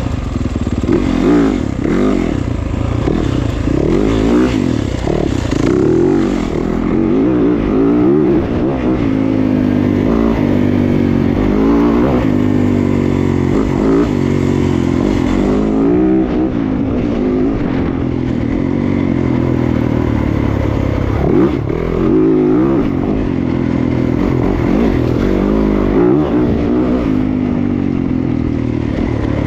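Yamaha WR450F single-cylinder four-stroke dirt bike engine being ridden hard, revving up and dropping back over and over as the throttle is worked and gears are changed.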